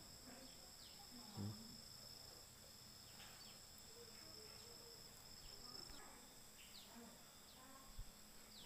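Near silence with faint, steady high-pitched insect trilling, and a few short falling chirps now and then.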